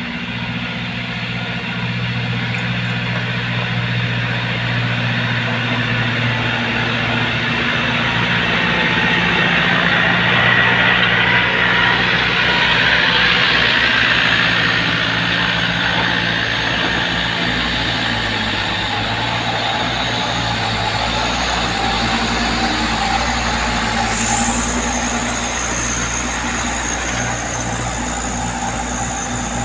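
Diesel engines of a farm tractor and a palm-fruit-laden Mitsubishi Canter truck working hard up a muddy hill. The sound grows louder as they come close, loudest about ten to fourteen seconds in, and a high steady whine joins near the end.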